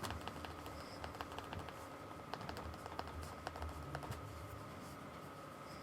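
Paintbrush dabbing and tapping on a canvas while applying lighter acrylic paint: a run of soft, irregular taps and scrapes. A faint steady high tone sits underneath.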